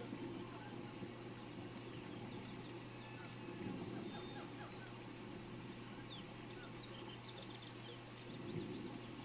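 Steady rain hiss with small birds chirping in short runs of quick notes, around three seconds in and again from about six seconds.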